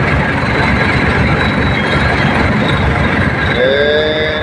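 Truck engine running steadily, heard from the cab, with a short squeal that rises in pitch and then holds, starting about three and a half seconds in.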